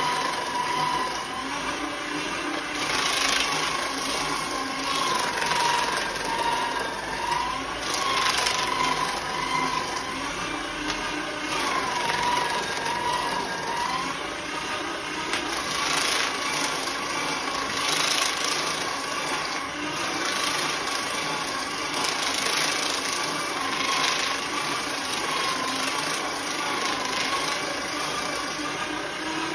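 Small electric paper shredder running continuously as sheets of paper are fed through it: a steady motor whine that dips in pitch now and then, with repeated bursts of paper being cut every few seconds.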